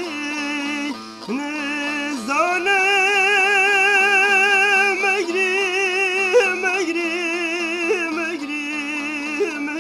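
Music: a solo voice sings slow, long held notes with a wide, wavering vibrato and slides between pitches, over a steady low drone.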